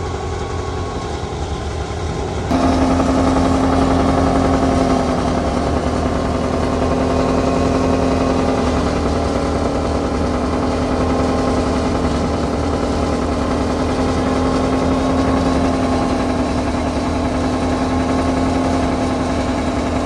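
Engine-driven wheat thresher running steadily, a continuous droning hum with a rattly mechanical texture. It gets louder about two and a half seconds in.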